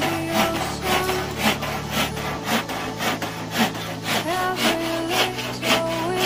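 Handsaw cutting through a wooden board, with steady back-and-forth rasping strokes about two a second.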